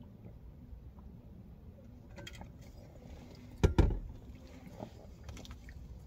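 A heavy tumbler being set down with one loud thump a little after three and a half seconds in, over a low, steady in-car rumble. Small light clicks of a plastic fork and takeout container follow.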